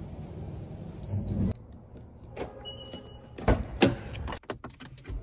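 Elevator cab hum with a single high electronic chime about a second in. Then a short electronic beep, two loud thumps and a quick series of clicks, the sounds of getting into a car.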